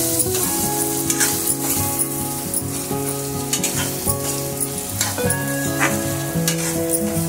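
Sliced ivy gourd (kundru) sizzling in oil in an aluminium kadai while a metal spatula stirs it, scraping and tapping against the pan. Background music with changing notes plays underneath.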